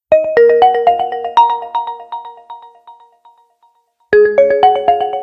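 OPPO phone ringtone: a melody of quick notes, each ringing on and dying away. The phrase fades out, then starts again just after four seconds in.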